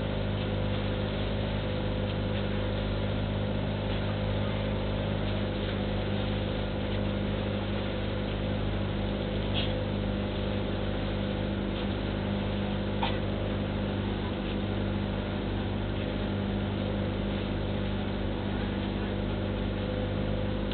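The engine of a motorized outrigger boat (bangka) running steadily under way, its even drone laid over a constant rush of wind and water.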